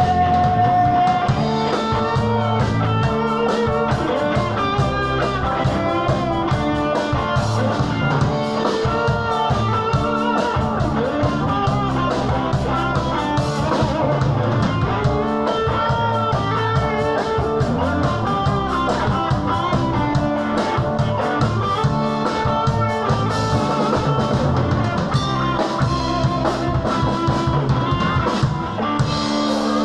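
Live rock band playing an instrumental passage: electric guitars over bass and a drum kit, with no vocals. The playing is loud and continuous.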